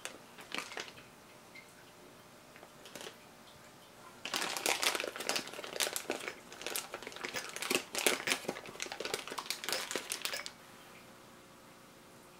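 Thin plastic piping bag crinkling and rustling as hands gather and twist it around macaron batter: a few light rustles at first, then a dense run of crinkling from about four seconds in to about ten seconds.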